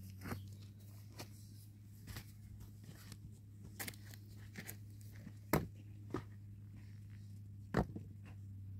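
Stones and tools knocking now and then during stone-and-cement wall building: scattered sharp knocks and clicks, roughly one a second and the loudest near the middle and near the end, over a steady low hum.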